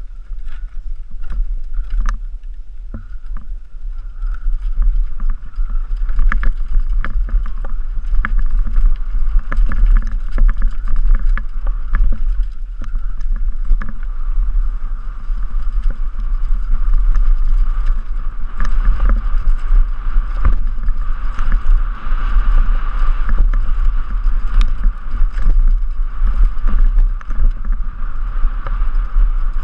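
Wind rumbling on a helmet-mounted camera's microphone while a downhill mountain bike rolls over a rough dirt trail, with many sharp rattles and knocks from the bike and tyres on the bumps. It grows louder about six seconds in as the speed picks up.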